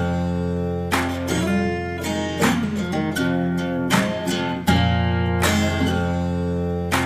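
Background music: acoustic guitar strumming chords about once a second over a held low bass note.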